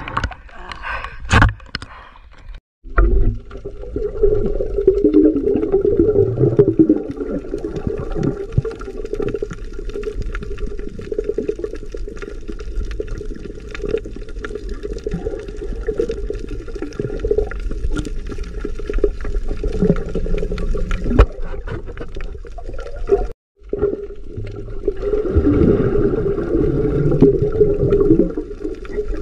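Splashing at the sea surface for the first couple of seconds. Then, after a brief break, the muffled rushing and bubbling of water heard underwater, steady and low.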